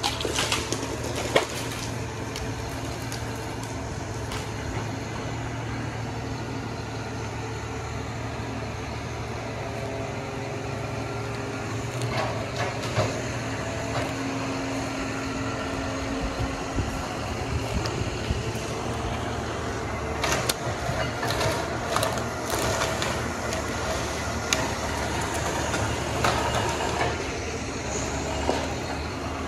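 Diesel engine of a John Deere forestry machine running steadily, with scattered sharp knocks in the second half.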